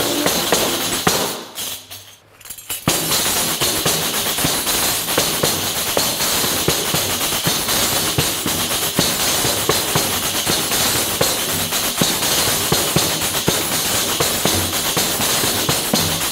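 Pandereta, a Spanish frame tambourine with metal jingles, struck by hand in a steady traditional rhythm, its jingles ringing continuously. The playing dips almost to nothing for about a second, about two seconds in, then carries on.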